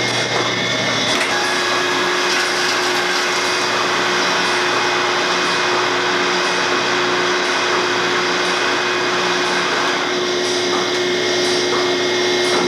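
Milking machine vacuum system running: a steady hiss and hum with a faint regular ticking.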